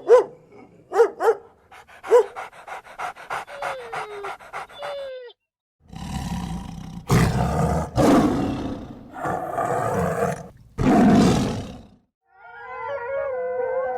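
A sequence of separate animal calls. First comes a string of short pitched calls that fall in pitch, with a fast rattle of pulses, about eight a second, in the middle. After a brief break come four loud, rough, low calls of about a second each, and near the end a wavering pitched call.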